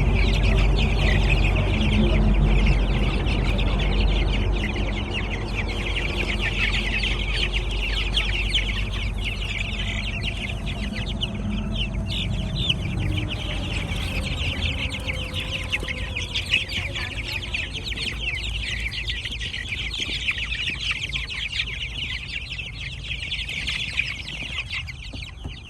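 A flock of young H'Mông chickens clucking and cheeping over one another without a break, with a low rumble under them that fades out in the first several seconds.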